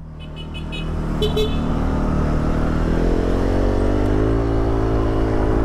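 Motorcycle engine pulling away from a stop, its pitch rising steadily and then holding as it reaches cruising speed, with road and wind noise growing. A few short high beeps sound in the first second and a half.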